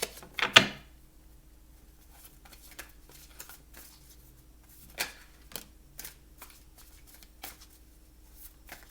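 A deck of tarot cards being shuffled by hand: a loud rush of cards just after the start, then a run of soft flicks and taps as the cards are worked through.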